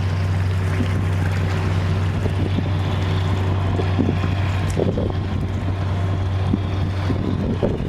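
Fishing boat engine running steadily with an even low hum.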